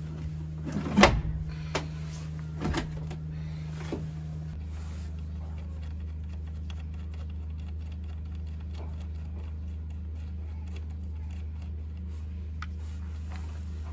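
A steady low mechanical hum, its pitch shifting slightly about four and a half seconds in, with a few sharp knocks in the first four seconds, the loudest about a second in.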